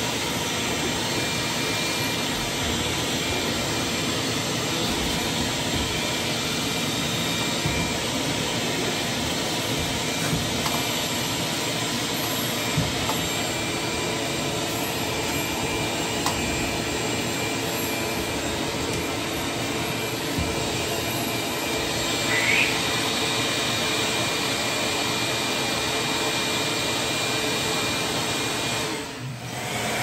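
Ridgid 10-gallon stainless steel wet/dry shop vac running steadily while its hose tool sucks along carpeted stair treads, with a few light knocks of the tool on the steps. The sound dips briefly near the end.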